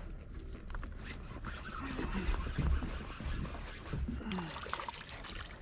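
Water lapping against a kayak hull, with a steady low rumble of wind on the microphone and a few faint knocks.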